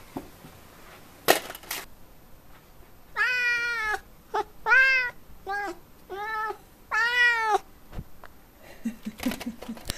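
F6 Savannah cat meowing five times in quick succession; each meow rises and then falls in pitch, the second and fifth the longest. A sharp knock comes about a second in, before the meows.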